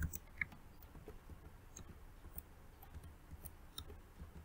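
Faint, scattered computer mouse clicks, with two sharper clicks right at the start and about half a second in.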